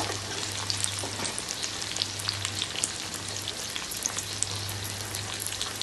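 Onions, tomatoes and chilli-garlic paste frying in mustard oil in a wok: a steady sizzle with many small crackles, over a low steady hum.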